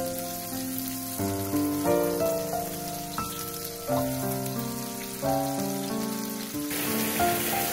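Sea scallops sizzling in hot butter in a nonstick frying pan as they are laid in, the sizzle growing louder near the end as more go in. Soft background piano music plays over it.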